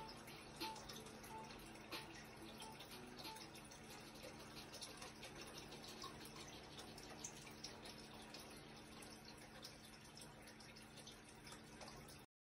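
Near silence: faint room tone with a low steady hum and scattered soft ticks, cutting off abruptly near the end.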